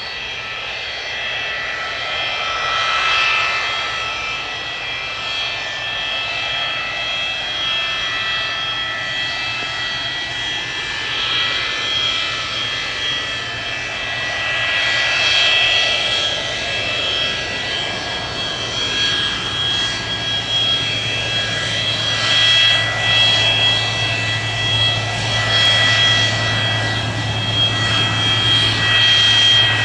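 Boeing 727-200's three Pratt & Whitney JT8D turbofans running at low power as the jet taxis: several steady high-pitched whining tones over a rushing jet noise, with a low hum growing in from about halfway.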